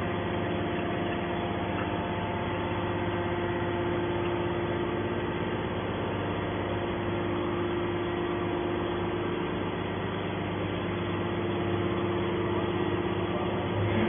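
Y81Q-1350 forward-out hydraulic scrap metal baler's hydraulic power unit running with a steady hum while the ejector ram slowly pushes a compressed bale of scrap out the front.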